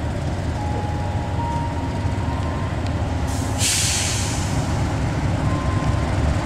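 KAI CC 206 diesel-electric locomotive running as it hauls a passenger train past, a steady low rumble. About three seconds in, a sharp burst of air hiss starts suddenly and fades over about a second.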